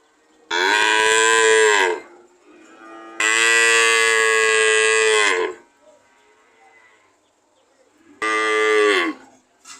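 Cow mooing: three loud moos, the second the longest at about two seconds and the last a short one, each dropping in pitch as it ends.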